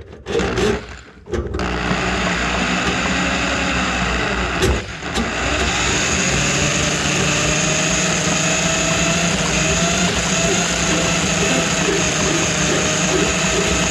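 Electric drain-cleaning machine motor starting up about a second and a half in and running steadily, with a brief interruption near five seconds, as it works on a kitchen drain line plugged with grease.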